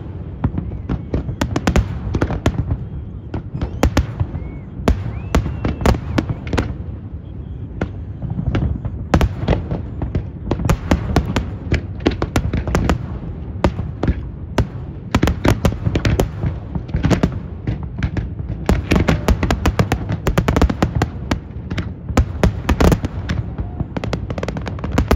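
Aerial fireworks display: a dense, continuous barrage of shell bursts, many bangs and crackles a second over a steady low rumble.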